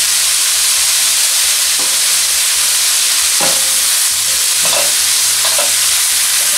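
Chopped spinach, carrot and red bell pepper sizzling in oil in a skillet, a steady hiss. From about three seconds in, a spatula scrapes and stirs through the vegetables in a few strokes.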